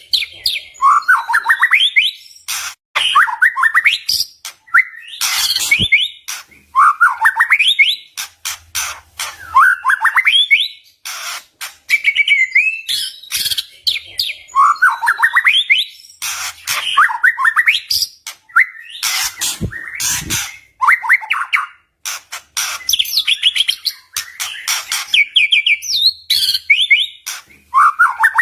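White-rumped shama (murai batu) singing: short loud phrases of quickly rising whistled notes, one every two to three seconds, mixed with many sharp, cracking clicks between the phrases.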